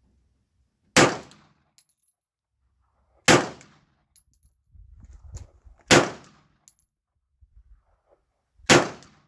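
Four single shots from a Glock 41 .45 ACP pistol, fired slowly about two and a half seconds apart, each a sharp report with a short decaying echo.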